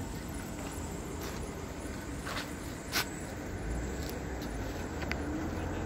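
A vehicle engine running on the road, a low rumble that grows stronger about three and a half seconds in. There is a sharp click about three seconds in.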